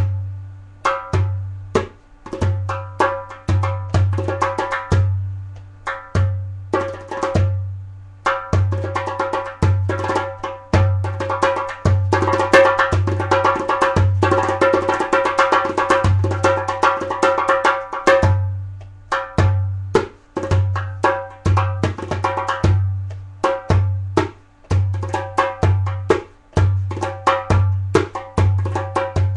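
Darbuka played solo with bare hands, with a dry tone: deep doum bass strokes keep a rhythm, filled in with quick high tek and ka finger strokes, and a long stretch of dense, fast rolls comes in the middle.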